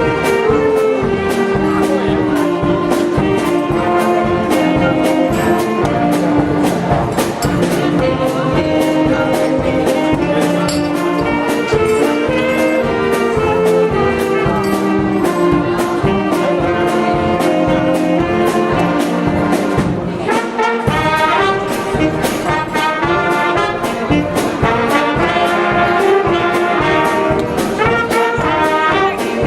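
Live entertainment orchestra playing an up-tempo number led by trumpets and trombones over a steady drum beat. The bass drops out for a moment about two-thirds of the way through.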